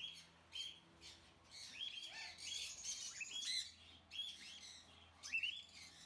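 Faint, high chirping of small birds: a run of short, quick calls in scattered groups with brief gaps between them.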